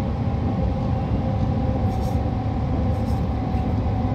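Passenger train running at speed, heard from inside the carriage: a steady rumble of wheels and running gear on the track, with a faint, even whine over it.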